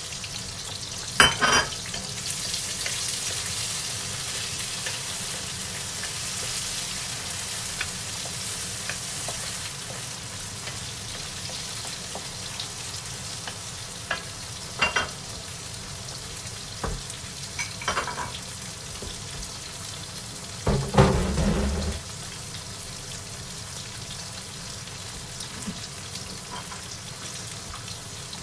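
Bacon sizzling as it fries in a hot wok, loudest in the first few seconds after it goes in. It is stirred with a wooden spatula, with a few knocks and clatters of utensils against the pan, the loudest a little after three quarters of the way through.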